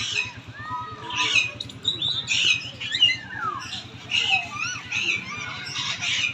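Many caged birds squawking and chirping at once: short, overlapping calls, some sliding up or down in pitch.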